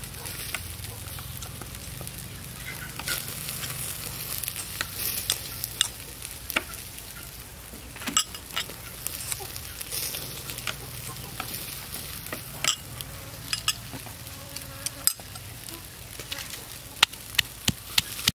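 A metal spoon scraping and clinking in a glass bowl of salt, with irregular light clicks. Near the end a wooden pestle starts pounding in a stone mortar, about three sharp knocks a second.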